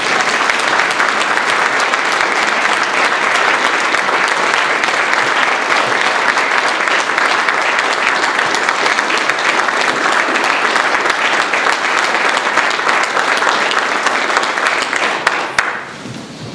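Audience applauding steadily, then dying away about a second before the end.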